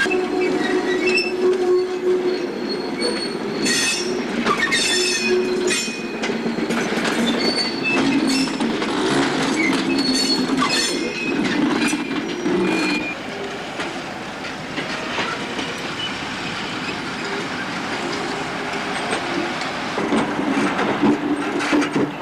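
Freight wagons rolling through the marshalling yard's points, steel wheels squealing in short high-pitched notes, with clicks and clanks over the rail joints. The sound dies down about two-thirds of the way through and picks up again near the end.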